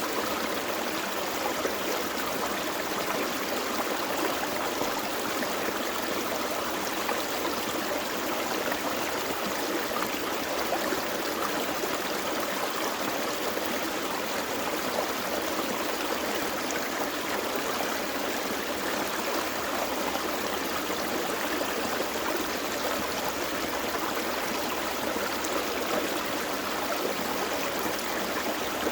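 Small forest creek flowing over rocks: a steady, even rush and babble of water that never changes.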